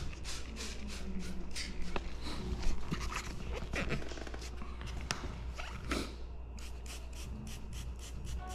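Trigger spray bottle squirting liquid cleaner in short hissy bursts onto plastic parts, spaced irregularly at first and then a quick run of several squirts a second near the end.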